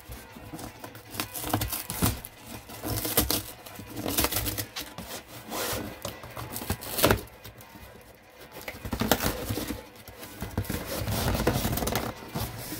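Hands gripping, rubbing and scraping at a corrugated cardboard shipping box while working to pry it open, with scattered sharp knocks as the box is handled.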